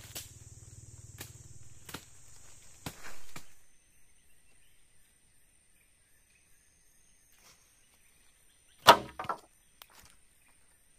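Scattered light knocks and clicks, with one loud knock about nine seconds in. A steady high hiss stops abruptly about three and a half seconds in.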